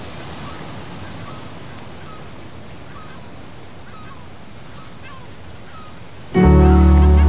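Steady background noise with several faint, short bird chirps, then loud music with sustained tones cuts in suddenly about six seconds in.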